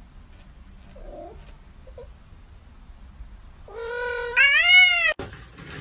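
Kitten mewing: two faint short mews, then near the end a loud, long drawn-out meow that holds steady and then rises and falls in pitch, as its plush toy is pulled away from it.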